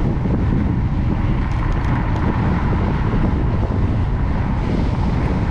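Steady wind rumble on the microphone while riding, with no break or change.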